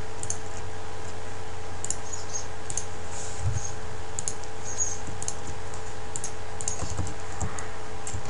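Scattered computer mouse clicks and keyboard keystrokes at irregular intervals, over a steady background hum.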